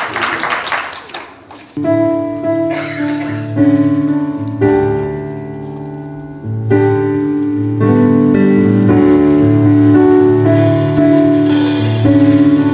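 Keyboard music: sustained chords over a bass line, starting about two seconds in. Near the end a fast, steady high percussion rhythm joins.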